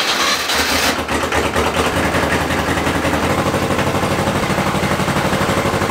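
Massey Ferguson 210-4 tractor's diesel engine running steadily just after a glow-plug start, with an even, rapid beat.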